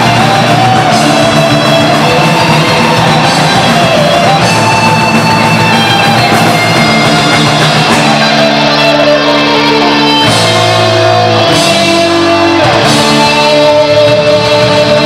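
Heavy metal band playing live: distorted electric guitars and drum kit, loud and dense, with the chords shifting about eight and ten seconds in.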